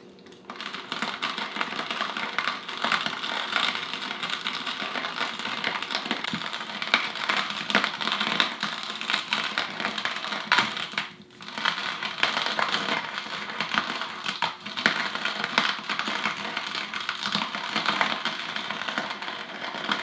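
Whole coffee beans crunching in the hand-crank grinder of an all-in-one camp pour-over coffee maker, a dense run of fine clicks and crackles as the handle is turned. The grinding breaks off briefly about halfway through.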